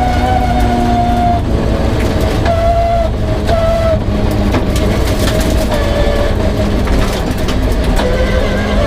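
Rear-wheel-drive Peugeot 306 rally car's engine running hard on a special stage, its note holding and then stepping down and back up in pitch every second or so. Scattered sharp clicks and knocks sound over it.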